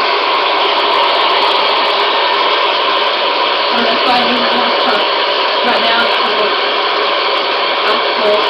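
Steady white-noise hiss played back, loud and unbroken, with faint voice-like fragments under it.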